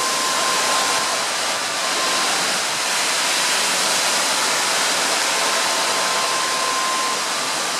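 Storm wind rushing through a tall fir and neighbouring leafy trees: a steady rushing hiss of tossing foliage.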